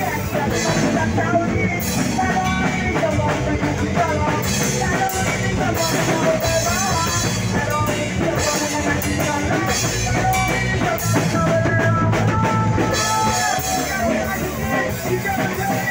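Live punk rock band playing loud: a drum kit and electric guitars, with vocals.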